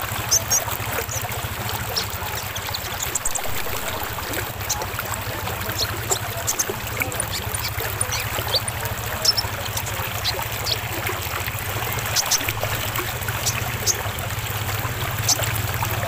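Flowing water trickling steadily, a sound used as a lure to set a caged sunbird singing. Many short, high chirps from the sunbird are scattered over it, one or two a second.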